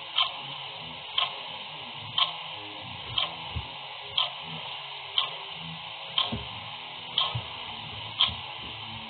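A clock ticking steadily once a second, over a faint steady hiss.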